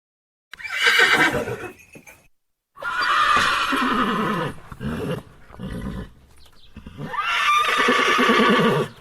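Horse whinnying three times, each call starting high and falling in pitch as it trails off, with a shorter call between the second and third.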